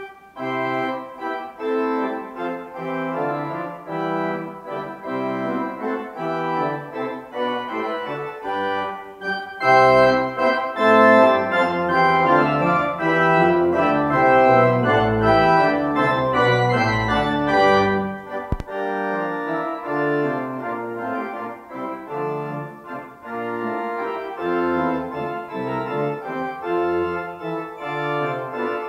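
Church pipe organ playing a postlude of sustained chords on the manuals. It grows louder about ten seconds in, with deep pedal bass notes for a while.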